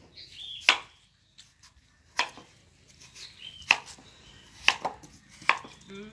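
Knife chopping papaya on a wooden cutting board: five sharp single chops, spaced a second or so apart.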